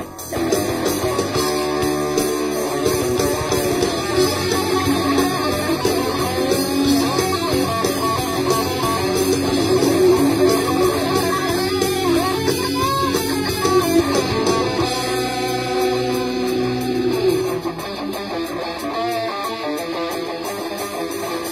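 Electric guitar playing a melodic line, some notes bending and wavering in pitch.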